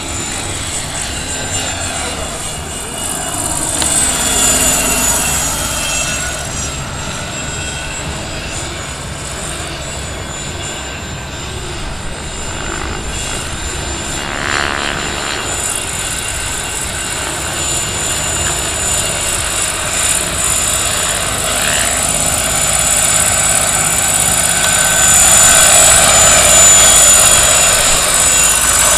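Large scale radio-controlled Swiss Lama helicopter in flight, its onboard turbine sound module giving a steady high turbine whine over the noise of the rotor. It grows louder over the last few seconds as the helicopter comes close.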